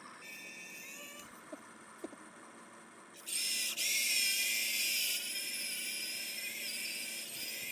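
Small electric motors and gears of a radio-controlled toy excavator whining as it swings its upper body. The high-pitched whine sets in about three seconds in, after a couple of faint clicks, and eases a little after about five seconds.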